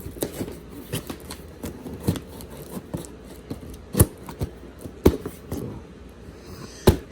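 Cardboard box and packaging being handled: rustling, scraping and small clicks, with three sharp knocks about four, five and seven seconds in.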